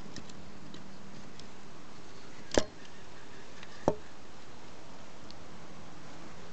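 Handling noise: two sharp clicks about a second and a half apart, the first the louder, over a steady hiss.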